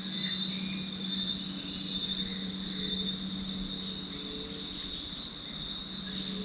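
Forest insects keeping up a steady high-pitched drone under a low steady hum, with a quick flurry of high chirps about halfway through.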